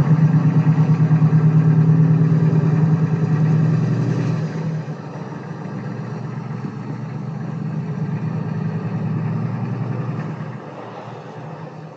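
An engine running with a steady, fast throb. It is loud for the first four seconds or so, then drops and carries on more quietly, fading further near the end.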